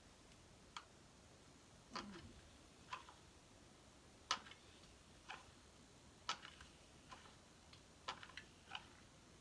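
Faint, sharp clicks of a ceramic crimping iron's plates and handles clamping shut and opening on a section of hair, roughly once a second with a few quick ones near the end.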